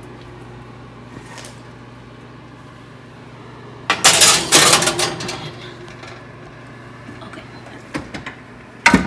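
Metal bakeware clattering and scraping against the oven racks in a loud burst about four seconds in, with a couple of sharp metal clicks near the end, over a steady low hum.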